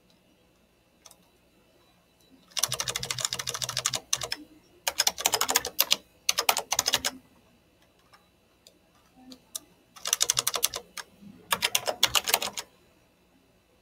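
Computer keyboard typing: five quick runs of keystroke clicks with short pauses between them.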